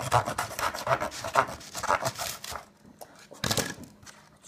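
Gingerbread house being broken and picked apart by hand: dense, irregular scraping and crunching of the hard gingerbread and icing, easing off, then one louder crunch about three and a half seconds in.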